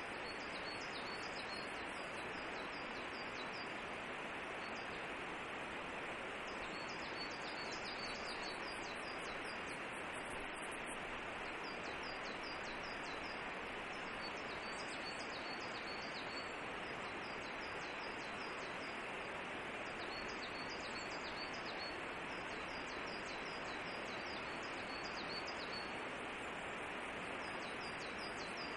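Steady, even outdoor forest ambience hiss, with faint high chirps repeating in quick short runs every second or two throughout.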